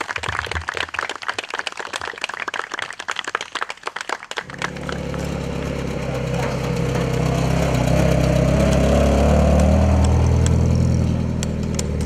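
About four seconds of dense crackling clatter, then the four-cylinder engine of a GAZ-69 off-road vehicle running as it drives off, growing louder for a few seconds and then easing.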